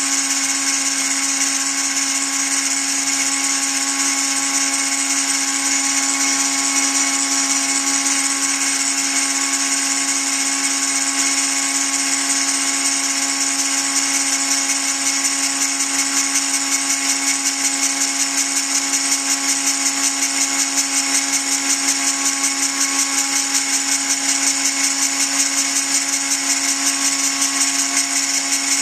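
Dremel-type rotary tool running a belt-driven tool post grinder spindle at steady high speed, its grinding point working the jaws of a mini lathe's spinning three-jaw chuck: a steady motor whine with a hiss above it. In the second half the level flutters quickly.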